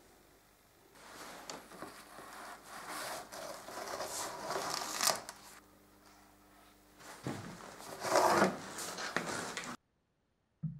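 Rustling and scraping handling noises in a series of swishes, with a low steady hum briefly in the middle; they cut off suddenly near the end, followed by one short thump.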